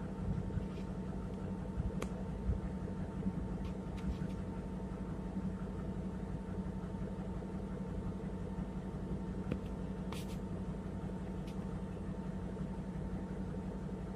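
Steady low hum and rumble inside a railroad passenger car, with a few light clicks and knocks.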